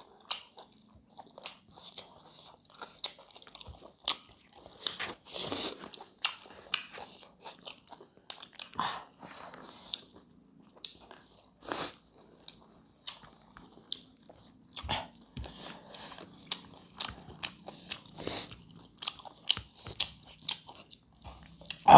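Close-miked chewing and biting of chicken gizzard and liver: irregular wet clicks and crackles of mouths working on the food, several a second, with a few louder bites.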